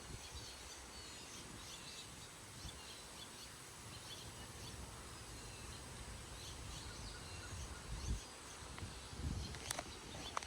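Low, gusting wind roar from a thunderstorm's approaching wind front, with faint bird chirps scattered through and a single sharp click near the end.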